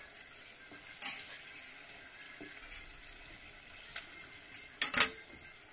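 A metal spoon clinking and knocking against a metal kadai while stirring and adding food to curry gravy, over a faint sizzle. A sharp clink comes about a second in, and a louder clatter of a few knocks near the end.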